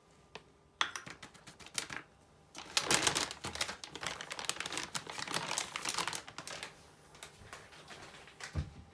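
Flour poured from a plastic bag into a plastic tub, with the bag crinkling and rustling in a run of quick, dry clicks, loudest from about three to six seconds in.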